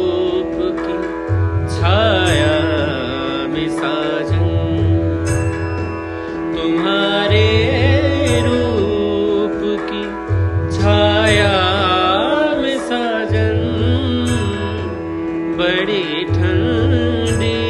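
Background music in an Indian style: a steady drone under a melody that glides in pitch, with a deep bass note restated about every three seconds.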